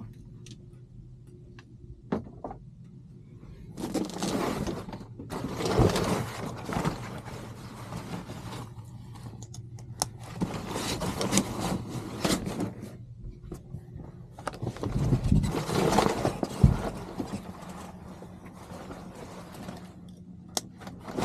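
Fabric cab curtains being pulled open along their track: several bursts of sliding and rustling over a steady low hum, with a sharp knock about three-quarters of the way through.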